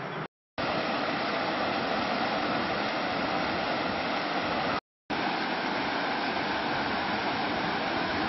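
Steady rushing of river water spilling over a low rocky ledge in small cascades, broken twice by brief gaps of silence.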